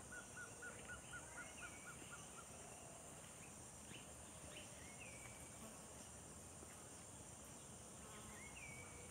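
Faint rainforest ambience: a steady, high insect drone, with bird calls over it. A rapid run of short notes, about four a second, dies away about two seconds in, and a short call that falls and then levels out comes three times, a few seconds apart.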